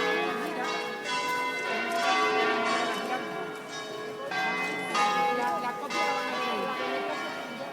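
The bells of Seville Cathedral's Giralda tower ringing, several bells struck again and again at different pitches, their tones ringing on and overlapping.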